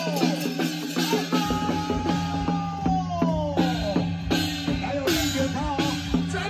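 Upbeat music with a quick, even drum beat and long melody notes that slide downward in pitch; a bass drum comes in about a second and a half in.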